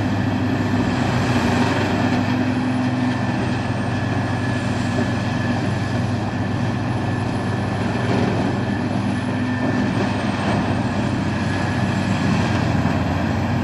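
Peterson 4300B horizontal drum wood chipper running, a loud, steady machine noise with a constant engine hum.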